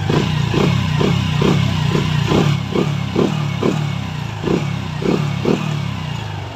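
A small Honda motorcycle's single-cylinder engine running, with a steady low drone and regular pulses about twice a second. The sound drops away near the end.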